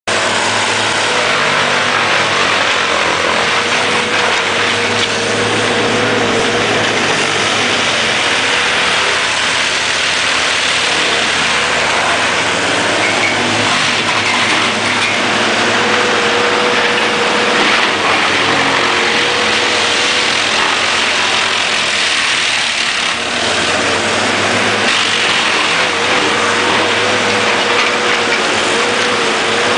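Conehead wood chipper running under load, chipping logs and blowing the chips into a trailer: a loud, steady rush of engine and chipping noise over a low engine hum, with a thin whine that comes and goes.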